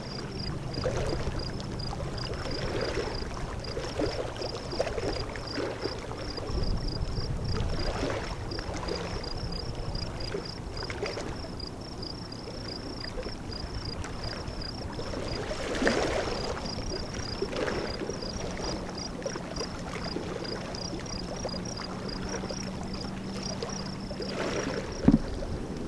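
Small waves washing against a pebble shore, one soft wash every second or two. A rapid high ticking runs throughout, and a sharp click comes near the end.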